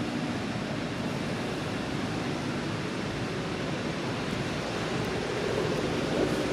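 Steady rushing background noise with no distinct events; a faint low hum comes in near the end.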